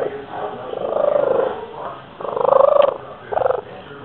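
Russian Blue cat purring very loudly, a rippling, cooing purr that swells and fades three times and sounds much like a pigeon.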